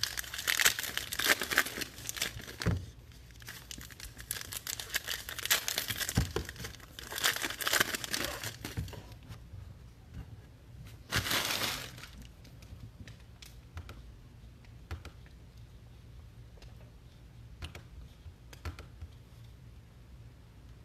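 Foil wrapper of a trading-card pack being torn open and crinkled, in repeated bursts over the first nine seconds and once more around eleven seconds. After that come only light scattered clicks of the cards being handled.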